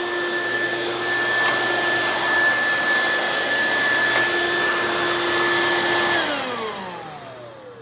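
Hoover Quik Broom S2541 suction-only stick vacuum running with a steady whine, then switched off about six seconds in, its motor pitch falling as it spins down.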